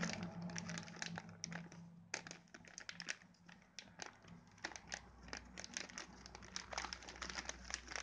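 Clear plastic accessory bag crinkling and rustling as a hand handles it, with many short, irregular crackles throughout.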